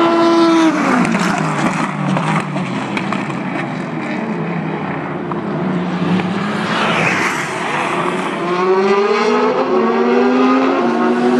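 Race car engines at speed: one car passes with its engine note dropping sharply about half a second in, then after a stretch of mixed engine noise another engine climbs in pitch through the revs and steps down once near the end, a gear change.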